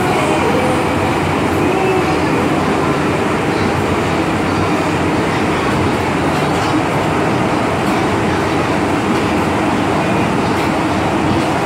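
MTR M-train subway car running through a tunnel, heard from inside the car: a steady, loud rumble of wheels on rail and running gear.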